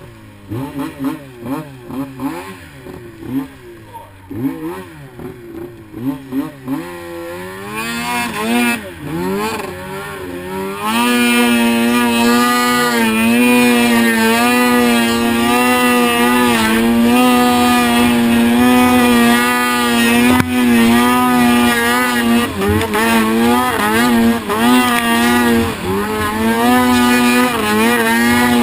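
2009 Arctic Cat M1000 snowmobile's two-stroke twin engine, its pitch rising and falling with the throttle for the first several seconds. It climbs about eight seconds in and from about eleven seconds on is held loud at a steady high pitch, riding under sustained throttle through powder.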